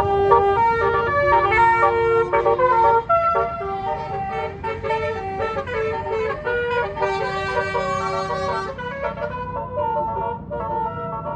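Tour bus basuri musical air horn playing a 'telolet' melody, its notes stepping quickly from pitch to pitch, loudest for the first three seconds and then a little softer. A low engine rumble runs underneath.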